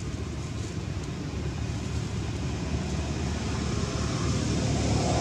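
Low rumble of a motor vehicle, slowly growing louder.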